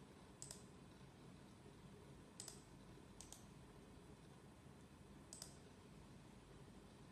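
Four sharp computer mouse clicks a second or two apart, each a quick press-and-release double tick, over faint room tone.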